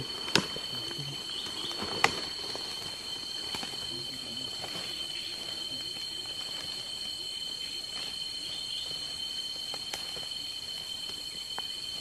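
Steady high, two-pitched drone of forest insects, with brush rustling and a few sharp twig snaps as people push through dense undergrowth; the loudest snap is about two seconds in.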